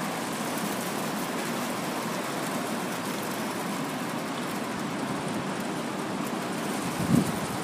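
Steady rushing outdoor noise with no distinct events, and a brief low thump about seven seconds in.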